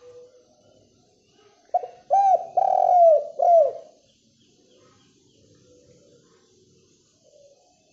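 Spotted dove (derkuku) cooing: one loud phrase of four low notes about two seconds in, a short first note, then longer ones with the third the longest, each dropping in pitch at its end. Fainter coos sound before and after it.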